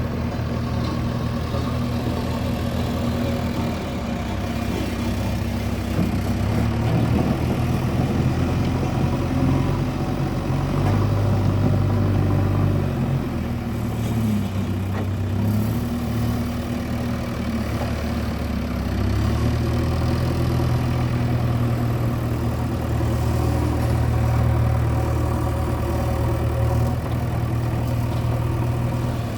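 JCB 3DX backhoe loader's diesel engine running under working load, its pitch sagging and picking up again several times as the machine digs, then holding steadier near the end.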